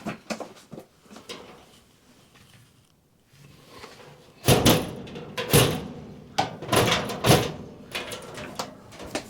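A wire chimney brush on its rods scraping and knocking inside a metal stovepipe as it is pulled back through. A few light clicks come first, then, about halfway through, a run of loud scrapes and bangs.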